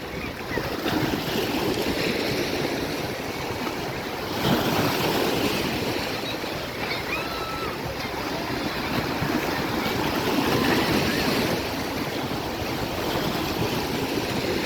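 Sea surf washing onto the shore as a steady rushing noise, swelling louder about four seconds in and again near the end as waves break.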